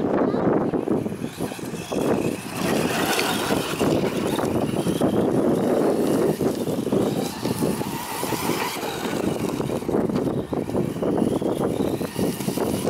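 Radio-controlled 4x4 desert truck driving over loose dirt: its motor whines up and down as the throttle changes, over a steady rushing noise.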